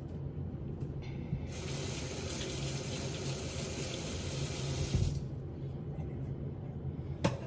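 Kitchen faucet running into a stainless steel sink, its stream splashing over hands. The water comes on about a second and a half in and is shut off after about five seconds.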